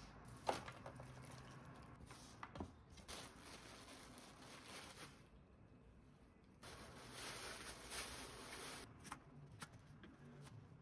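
Faint kitchen food-prep sounds: a sharp knock about half a second in as chopped vegetables go onto a plate, plastic bag crinkling for about two seconds past the middle, then a few knife cuts through garlic chives on a wooden cutting board near the end.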